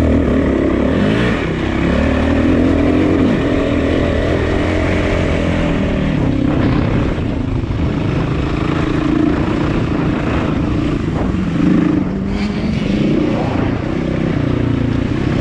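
Off-road enduro motorcycle engine under way on a dirt track, its pitch rising and falling again and again as the throttle is opened and rolled off through the jumps and bends.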